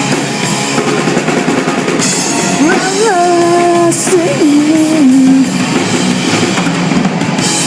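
Live rock band playing between sung lines, with the drum kit prominent. A held melodic line comes in over it about halfway through.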